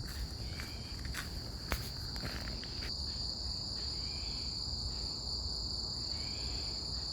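A steady, high-pitched chorus of insects, crickets by the sound of it, trilling without a break. Footsteps on the path click along for the first three seconds, then stop.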